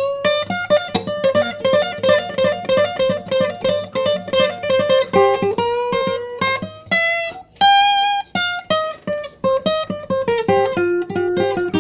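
Solo guitar picking a quick melody of single plucked notes, an instrumental break between sung verses. Near the end the line steps down into a few held, wavering notes.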